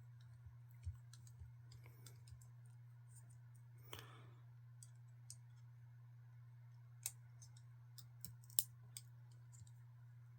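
Faint, scattered clicks and taps of small metal tools and screws as the handle screws are taken out of a Benchmade Mini Griptilian folding knife, with the sharpest clicks about two-thirds of the way through, over a steady low hum.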